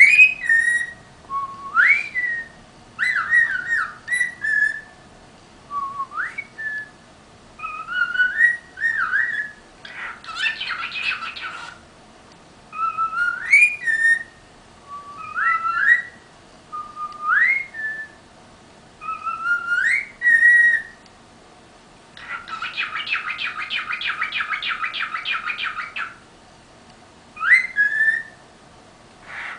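Pet bird singing: a string of short rising whistled phrases, one every second or two, broken twice by a fast buzzy trill, the second lasting about four seconds.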